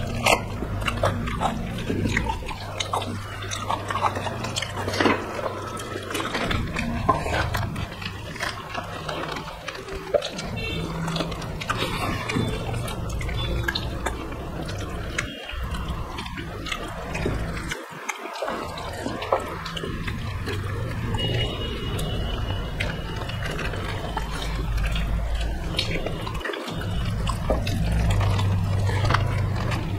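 Close-up eating sounds of two people eating rice and curry by hand: wet chewing and lip smacking, with fingers squishing and mixing rice on the plates, in many small clicks over a low hum.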